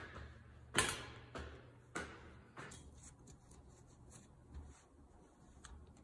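Washed laundry being hung on a drying rack: fabric rustling and light knocks against the rack, the sharpest about a second in and a few softer ones after it, over a faint low hum.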